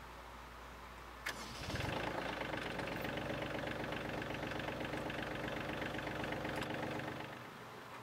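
A click, then the Kioti CK35 compact tractor's diesel engine starts about two seconds in and idles steadily, fading out near the end.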